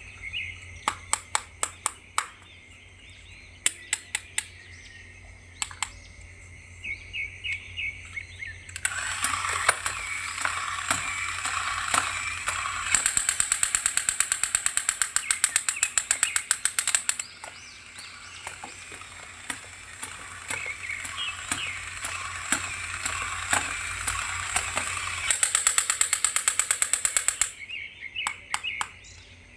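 Plastic toy packaging being handled and opened: scattered sharp clicks, then a long stretch of dense crackling and rustling that swells twice before dropping back to clicks near the end.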